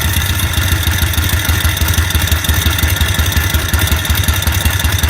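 Side-valve (flathead) engine idling with a steady, rapid pulsing beat and an abnormal noise; the owner notes its compression has dropped to 2 and its oil return is poor.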